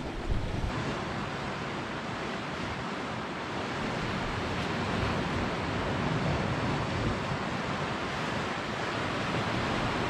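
Sea waves washing steadily against the rocks, with crosswind gusting on the microphone.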